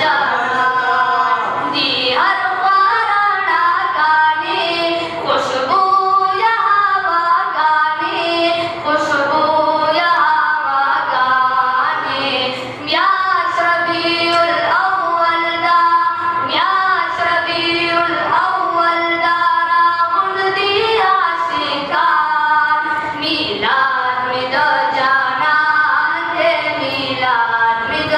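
A Pashto naat, a devotional Islamic song, sung unaccompanied by a solo voice in a flowing melody with long held, bending notes.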